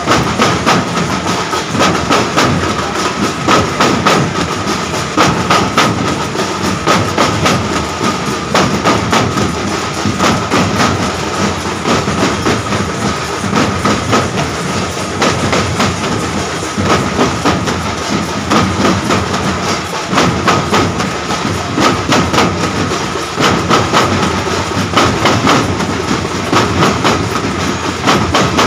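Several large Matua danka drums beaten together in a fast, continuous rhythm of dense strikes, with a steady ringing tone underneath.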